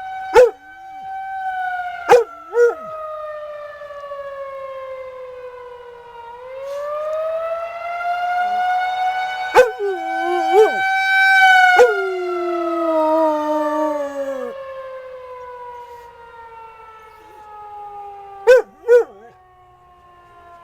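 Outdoor tornado warning siren sounding a long wail for its monthly test: the tone slowly falls, swings back up about six seconds in, then falls gradually again. A dog barks loudly over it several times, the barks coming singly or in twos and threes.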